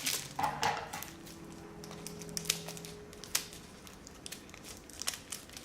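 A snack package of chopped dates crinkling and rustling in the hands as it is pulled and worked at, hard to open; the crackles are densest in the first second and thin out to scattered clicks.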